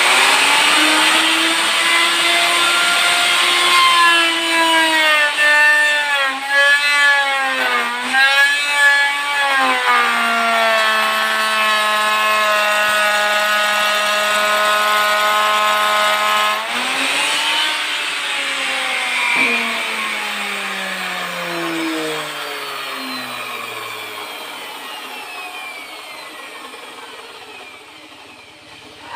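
Makita electric router running and cutting along the edge of a wooden board on a trial pass. Its whine wobbles and dips as the bit bites into the wood, holds lower and steady, then falls in pitch for several seconds after about 17 seconds in as the motor winds down.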